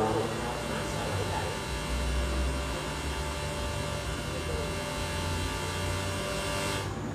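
Minimal electronic music played through a club PA during a soundcheck: a steady buzzing drone built of many fixed tones, with deep bass tones that come and go. Near the end the high hiss drops away for a moment.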